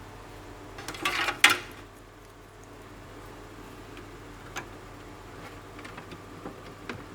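Handling noises: a few sharp clicks and knocks, the loudest cluster about a second in and single clicks later, over a steady low hum.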